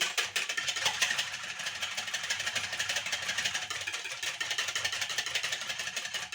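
Toffee sauce of caramel, cream and cornflour being stirred quickly with a utensil knocking and scraping against its container, a fast, continuous clicking.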